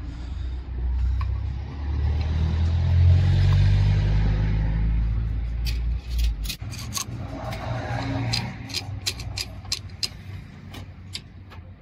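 A motor vehicle's engine rumbling by, swelling to its loudest about three seconds in and fading out. It is followed by a quick run of sharp clicks and taps.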